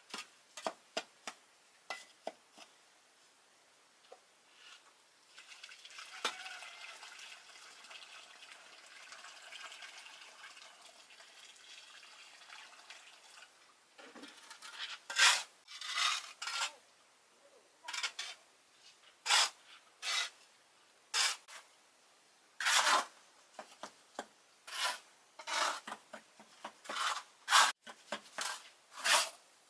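Light scattered clicks, then a soft steady hiss for several seconds, then a run of short scraping strokes at irregular intervals of about one to one and a half seconds, the sound of a hard tool scraping a gritty surface.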